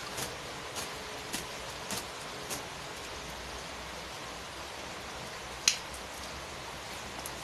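Steady rain falling. Over it come a run of short, sharp swishes about every half second in the first few seconds and one much louder snap about three-quarters of the way through, from long wet hair being handled and shaken out to dry.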